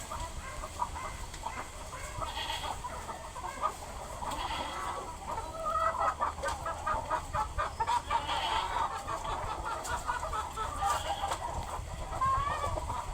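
A flock of chickens clucking, with a quick run of clucks in the middle, over a steady low rumble.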